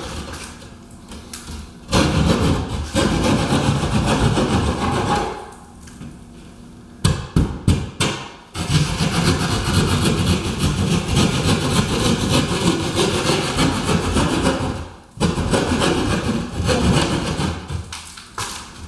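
Hand jab saw cutting an opening in a wall in rapid back-and-forth strokes, stopping briefly twice.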